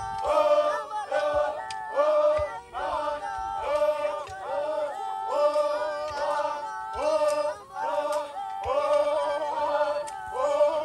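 A group of men's voices singing a chant together in short, repeated phrases, each sliding up at its start, while they work the ground with digging sticks.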